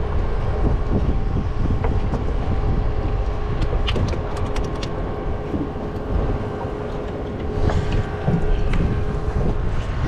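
Wind buffeting the microphone in a loud low rumble, over a steady faint hum and a few sharp clicks about halfway through.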